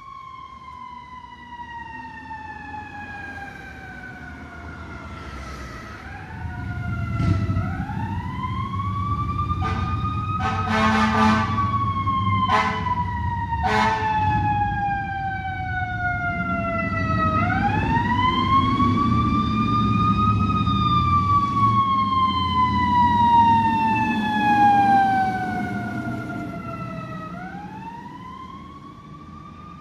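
Fire truck sirens wailing: each rises quickly, then falls away in a long, slow glide over several seconds. Several short horn blasts cut in through the first half, over the low rumble of heavy apparatus engines passing, loudest through the middle.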